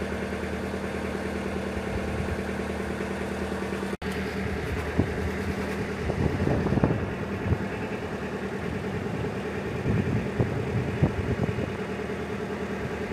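A narrowboat's diesel engine running steadily at an even speed, cutting out for an instant about four seconds in.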